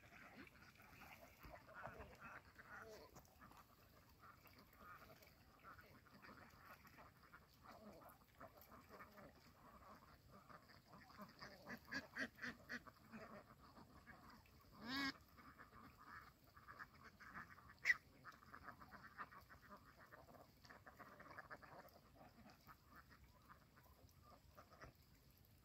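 A large flock of domestic ducks quacking and chattering faintly, with a few louder calls around the middle, one of them longer and drawn out.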